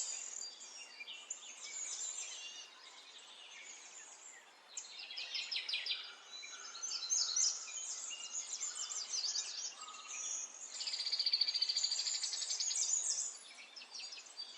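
Several small songbirds chirping and twittering at once, call over call. A rapid, high trill stands out for about two seconds past the middle.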